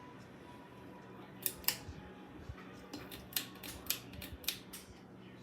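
Steady low hum of an Aloha Breeze hugger ceiling fan running, overlaid by a string of about eight sharp, irregular clicks between about one and a half and five seconds in.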